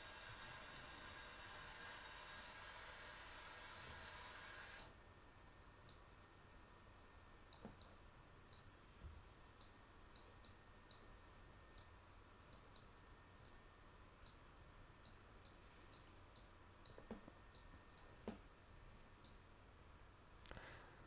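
Faint, scattered computer mouse clicks, roughly one a second, over low background hiss that drops away about five seconds in.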